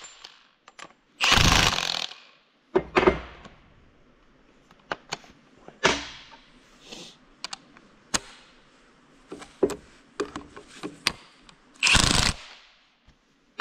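Cordless impact wrench hammering on a fitting of a hydraulic check valve block. It runs in short bursts, about a second long near the start, a brief one soon after and another near the end, with clicks and knocks of metal parts being handled in between.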